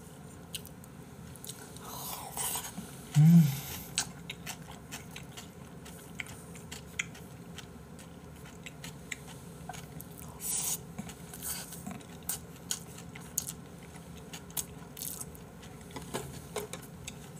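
Close-miked chewing of spicy seasoned raw oysters (gul-muchim) and rice, with wet mouth noises and small clicks throughout. There is a short louder hum about three seconds in.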